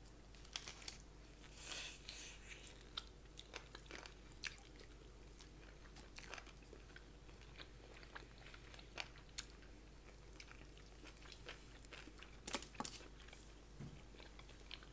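People chewing and biting food, with scattered short crunches and crackles, a longer crunchy spell about two seconds in and a few more near the end.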